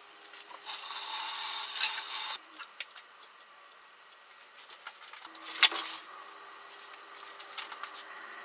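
Hands handling a ceramic serving plate: a rustling rub for a second or so near the start, a few light clicks, then a sharp knock about halfway through, followed by scattered small clicks.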